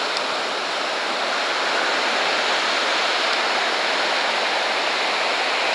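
Ocean surf on a beach: a steady rush of breaking waves with no single crash standing out.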